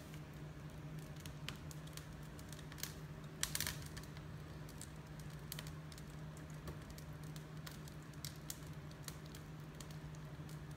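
Scattered small clicks and taps as a string wick is dipped into melted wax in a tin can and handled, the loudest cluster about three and a half seconds in. A steady low hum runs underneath.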